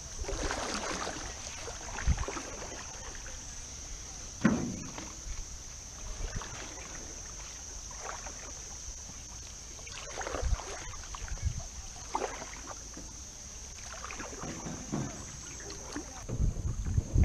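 Canoe paddles dipping and pulling through river water beside an aluminium canoe, a swish of water every second or two, with a couple of louder knocks about two and four seconds in.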